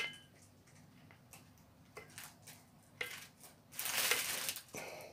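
Faint clicks and creaks of an adjustable plastic-and-spring hand grip strengthener as it is squeezed and released, a few seconds apart. About four seconds in comes a louder burst of rustling noise.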